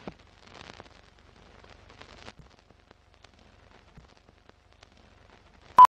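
Film countdown-leader sound effect: faint old-film crackle and scattered clicks, then, near the end, one short loud beep like a leader's sync beep.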